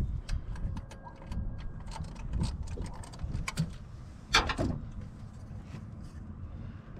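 Small metal clicks and ticks of a hand tool and tiny screws being worked out of a Ford distributor, with one short, louder noise about four and a half seconds in.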